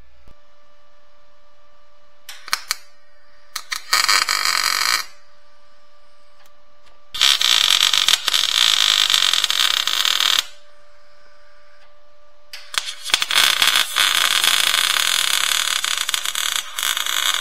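Electric arc welder welding a bolt onto a stuck pin in a transmission case: three bursts of crackling, about one, three and four seconds long, each starting after a few short ticks as the arc is struck. A steady faint hum underlies it.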